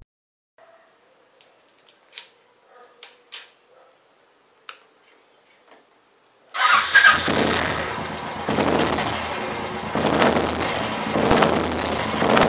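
A few faint clicks, then a motorcycle engine starts abruptly about six and a half seconds in and runs steadily at idle.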